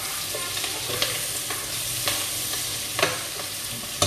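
Tempe, carrots and long beans frying and sizzling in a pan while being stirred, with a few sharp knocks of the stirring utensil against the pan.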